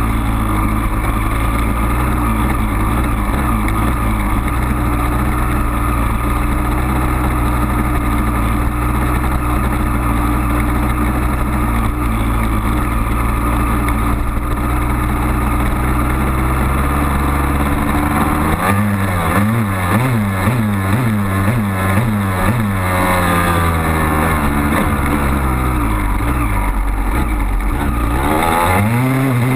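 A 2002 Honda CR250 dirt bike's single-cylinder two-stroke engine runs at a steady pitch under the rider. About two-thirds of the way in it revs up and down in quick repeated rises and falls, then climbs again near the end.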